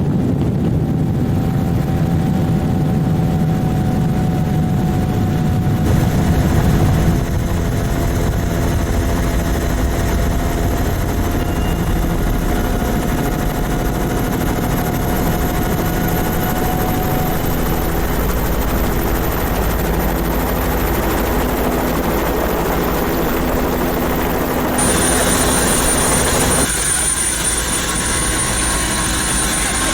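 Helicopter in flight: a steady, loud engine and rotor drone with a thin high whine that slowly rises. The sound changes abruptly a few times, about six seconds in and again near the end.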